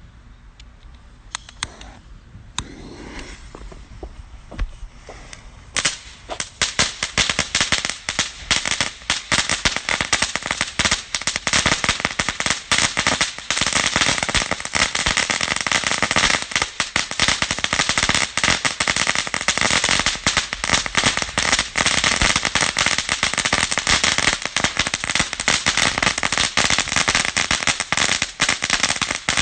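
Fireworks going off in a rapid, unbroken string of sharp cracks over a hiss. It starts with a few scattered cracks and becomes dense and continuous about six seconds in.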